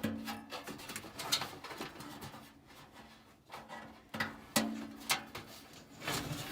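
Irregular knocks, clicks and scrapes of hand work on a sheet-metal gas furnace and its blower assembly. Twice, once at the start and once about four and a half seconds in, a knock sets off a short low ring.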